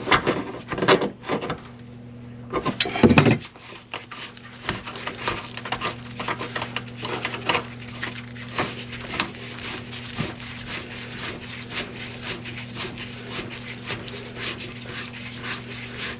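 Drain snake working in a grease-clogged kitchen drain line: rapid, irregular scraping and clicking of the cable over a steady motor hum, with a few louder knocks in the first three seconds.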